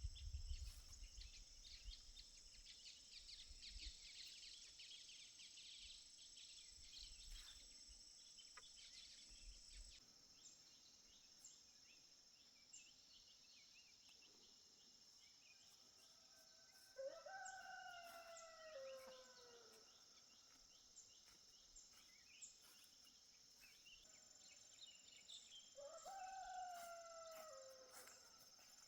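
A rooster crowing faintly twice, about halfway through and again near the end, each crow about two seconds long and falling at the end, over a steady high insect chorus.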